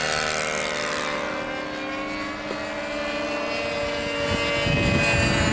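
Engine of a radio-controlled model airplane droning steadily as the plane flies, its pitch dropping a little in the first second as it moves away. Wind rumbles on the microphone near the end.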